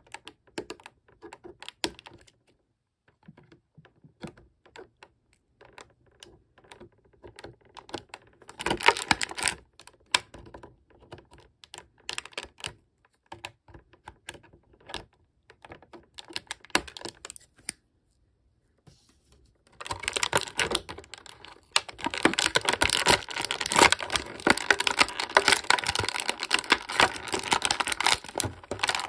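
Plastic toy packaging being handled and cut to free an action figure: scattered clicks and snips at first, then, from about two-thirds of the way through, a dense continuous crackling of plastic.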